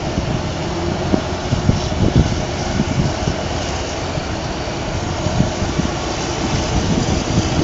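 DJ class diesel-electric locomotive running as it approaches slowly, a steady engine drone with uneven low thumps.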